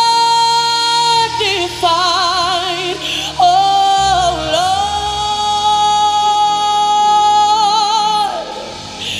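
A woman sings a gospel worship song over keyboard accompaniment, holding long notes: a short held note, a passage of wide vibrato, then one long held note from about three and a half seconds that breaks into vibrato near the end.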